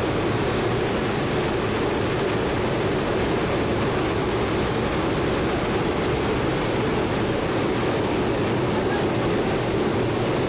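Steady rush of wind and engine noise in the cargo hold of a C-130 four-engine turboprop transport flying with its rear ramp open, even and unchanging throughout.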